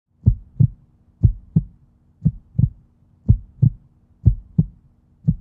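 Heartbeat-like electronic pulse: pairs of low thumps, about one pair a second, over a faint steady low hum.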